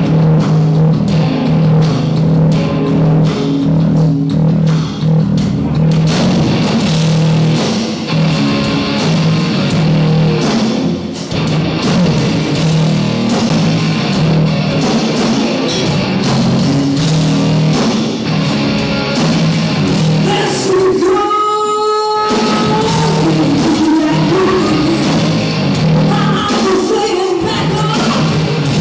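Live rock band playing loud: electric guitar and drum kit with a woman singing, on a rough, poor-quality recording. About three-quarters of the way through the low end drops out briefly, leaving one held note before the full band returns.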